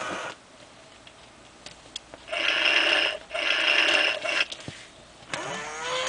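WowWee robotic crocodile toy's small geared motors whirring in two runs of about a second each, with a brief break between, as it moves on command from the infra-red remote. Near the end the toy's wavering, pitched electronic animal sound starts up.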